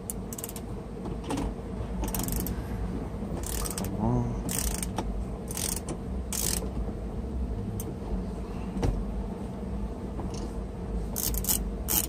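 Hand ratchet on a T55 bit clicking in short strokes as it turns the steering wheel's centre bolt. The clicking comes in bursts about a second apart for the first half, pauses, then comes quickly again near the end.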